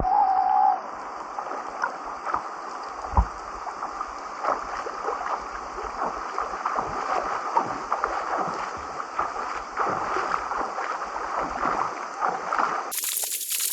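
River water splashing and gurgling, with a short pitched call right at the start and a single thump about three seconds in. The sound turns to a brighter hiss near the end.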